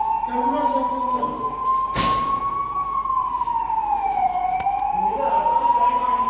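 Emergency siren wailing, its pitch sliding slowly up and down over a cycle of several seconds, sounding the alarm for a civil-defence emergency drill. A single sharp knock cuts through it about two seconds in.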